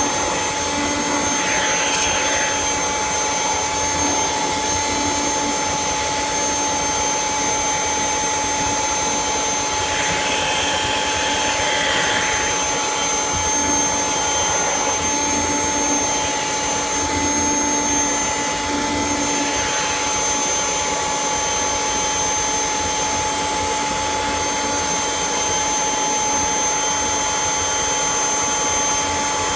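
Kirby Generation 3 upright vacuum cleaner running steadily, with a constant whine over the rush of air; the sound shifts briefly a few times as it is worked.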